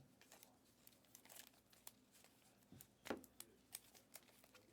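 Faint handling of trading cards and foil pack wrappers: light crinkling and scattered small clicks, with one louder tap about three seconds in.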